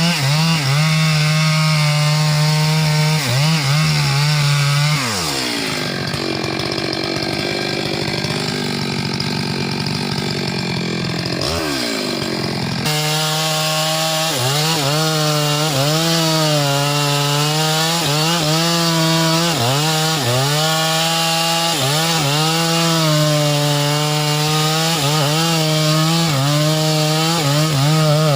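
Two-stroke chainsaw running at high revs while cutting wood, its engine pitch dipping again and again as the chain bogs in the cut and then recovering. Partway through, the engine drops to lower revs for several seconds, then picks back up before an abrupt change.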